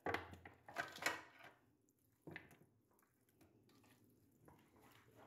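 Raw chicken pieces being tipped and pushed by hand from a stainless steel colander into a ceramic dish. The loudest stretch comes in the first second and a half, with a shorter burst a little over two seconds in. Faint overall.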